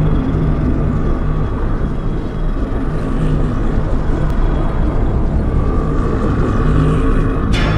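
Deep, steady rumbling drone of film sound design, with a brief whoosh near the end.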